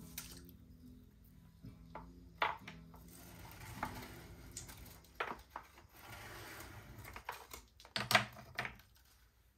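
Small hard objects knocking and clinking as they are handled, a few separate knocks with the loudest cluster near the end, and a stretch of soft noise in the middle.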